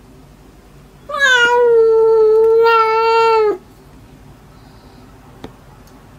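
A kitten gives one long, loud meow lasting about two and a half seconds, steady in pitch and dropping off at the end. A single faint click follows near the end.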